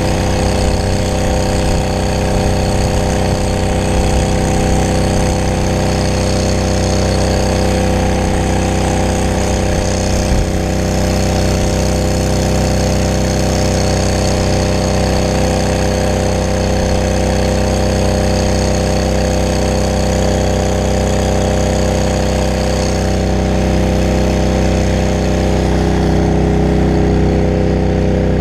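Brush fire truck's engine and water pump running steadily at one unchanging pitch while the hose sprays water, with a hiss over the engine drone.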